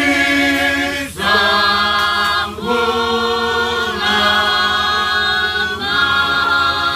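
A group of Fijian singers singing in close harmony, holding long sustained chords that shift every second or two.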